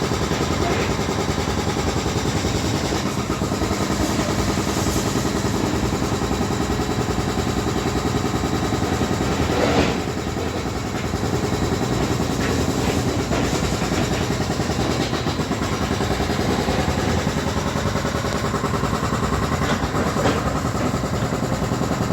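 Heavy construction machinery running steadily: an engine drone mixed with continuous drilling as workers cut into a steel ride support.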